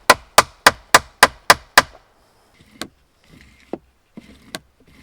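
Small hatchet chopping wood: a quick, even run of about seven sharp blows in the first two seconds, then a few lighter, scattered knocks.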